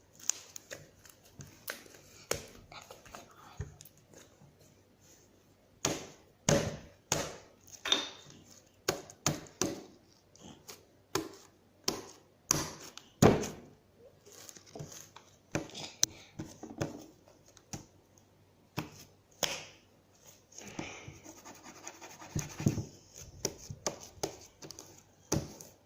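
Homemade glue slime being kneaded and worked by hand: a long irregular run of sharp slaps and clicks, busiest in the middle.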